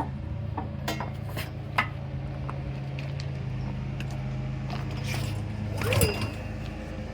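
Clicks and light knocks from handling a small EDOG inverter generator while it is readied to start. About six seconds in comes a louder swelling pull, the kind a recoil starter cord makes. A steady low hum runs underneath.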